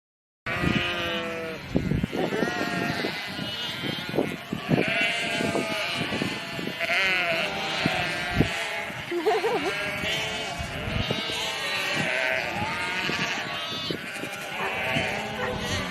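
A flock of sheep bleating, many calls overlapping one another, starting suddenly about half a second in.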